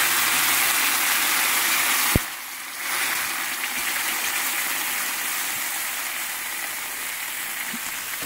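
Tomato sauce with cherry tomatoes sizzling hard in a hot frying pan. One sharp click comes about two seconds in, the sizzle dips briefly after it, then it goes on a little quieter.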